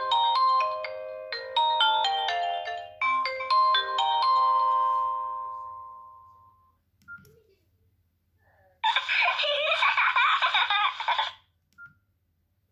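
Nokia 6630 playing a polyphonic ringtone: a quick melody of short, separate notes that stops about four and a half seconds in, its last note dying away. After a short pause, a denser, brighter tone plays for about two and a half seconds and cuts off suddenly.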